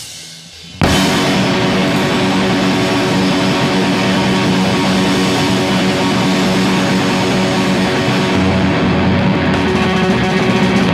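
Noise rock played live: after a short drop-out in the first second, electric guitar and drums come back in together, loud and dense, and keep going.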